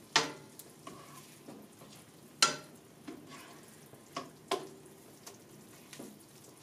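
Metal tongs clicking against a nonstick frying pan as chicken breasts are turned in a thick, reduced honey mustard sauce, over a faint low sizzle. The sharpest clicks come just after the start and about two and a half seconds in, with two smaller ones near four and a half seconds.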